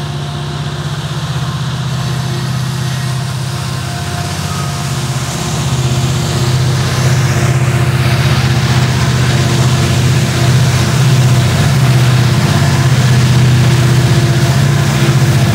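Montana Rail Link SD70ACe diesel-electric helper locomotives at the rear of a loaded coal train, their diesel engines running with a steady low drone that grows louder about six seconds in as they draw closer. Noise from the passing coal cars runs under it.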